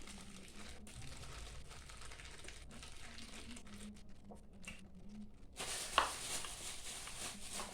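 Faint eating sounds: chewing and crackling noises. The sound turns louder and crisper about five and a half seconds in, with a sharp click just after.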